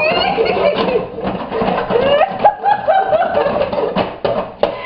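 People laughing and giggling, with sharp scattered pops of popcorn popping in a pan.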